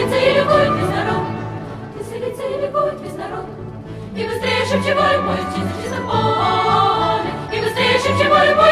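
Background music with a choir singing long, sustained notes, growing softer midway and then swelling again.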